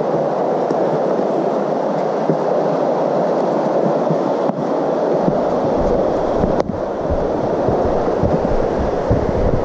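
Steady rushing of a creek flowing beside the trail, with a low rumble on the microphone starting about halfway through.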